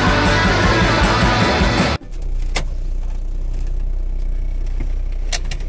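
Rock music for about two seconds, cut off abruptly, then the steady low rumble of a car interior, with a few sharp clicks.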